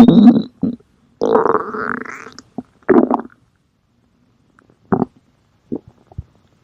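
Human stomach growling and gurgling in separate rumbles with silent gaps: a loud one dying away at the start, a longer one about a second in that trails off, a short one around three seconds, then a few brief gurgles near the end.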